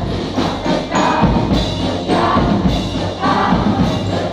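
Large choir of students singing together, accompanied by a military drum band's drums and cymbals beating steadily underneath.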